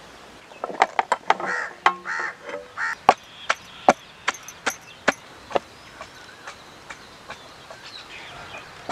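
Long wooden pestle pounding shallots in a hollow stone mortar: a run of sharp thuds, about a dozen strikes in five seconds, then only faint taps.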